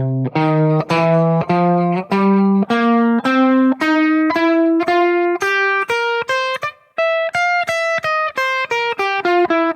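Guitar picking single notes, about three a second, up and then back down through a C pentatonic that holds both the minor and the major third (root, minor third, major third, fourth, fifth, flat seventh). There is a short break about seven seconds in.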